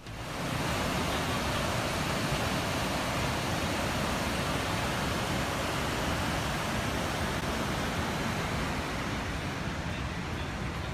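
Water rushing over granite ledges in a small river cascade, a steady, unbroken noise.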